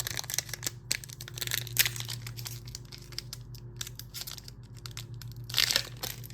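Foil booster-pack wrapper crinkling and tearing as it is handled and opened, with a louder burst of crinkling near the end.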